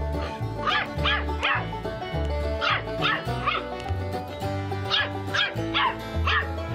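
A small puppy barking in short, high yaps, about ten in three quick bursts, over background music with a steady bass beat.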